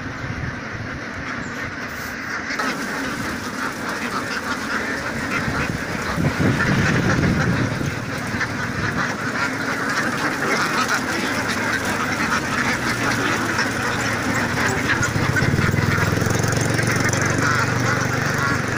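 A truckload of about three thousand domestic ducks crammed in slatted cages, quacking without pause as one dense, overlapping chorus.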